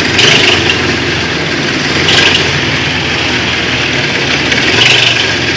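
Car engine running with a recurring squeaky 'klich klich' from the accessory drive belt system, heard three times a couple of seconds apart. The mechanic attributes it to a faulty drive belt, belt tensioner or idler pulleys.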